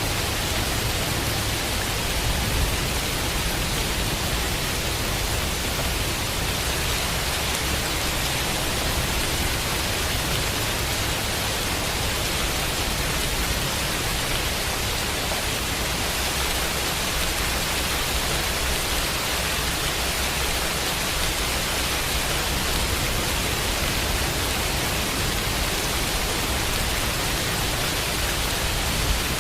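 Steady, unbroken rain hiss with a deep low rumble underneath, evenly loud throughout.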